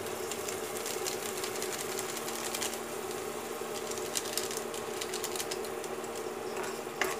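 Steady electrical buzzing hum of an induction cooktop with oil and onions sizzling and crackling in a wok on it, and a sharper click near the end.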